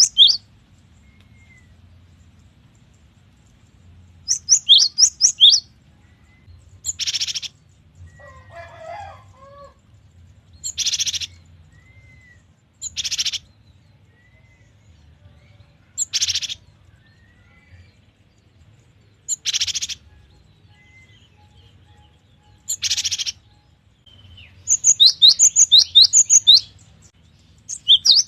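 A cinereous tit (gelatik batu) calling and singing. It gives quick runs of sharp, high, falling whistled notes about 4 s in and again near the end, and between them single short harsh, buzzy calls about every three seconds.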